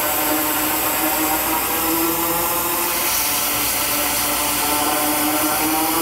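Lincoln Tomahawk 375 Air plasma cutter cutting into aluminum pipe: a loud, steady hiss of the air-plasma arc with a steady hum under it.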